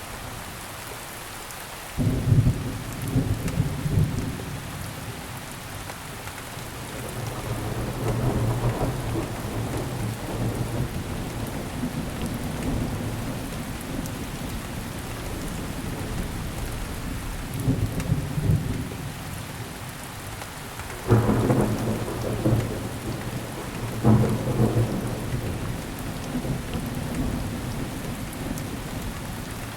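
Steady rain with rolling thunder. A sudden low rumble breaks in about two seconds in, swells again twice, then comes two sharper claps later on, and the thunder dies down near the end.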